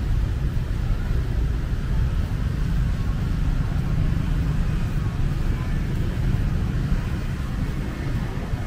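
Steady low rumble of road traffic and moving vehicles.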